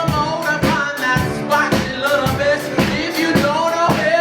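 Live band playing an upbeat blues-rock groove, with a drum kit hitting a steady beat about twice a second and a singer's voice over it.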